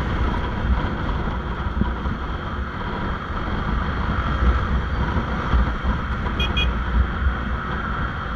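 Motorcycle on the move, its engine running under heavy wind noise on the microphone. A short run of high beeps comes about six and a half seconds in.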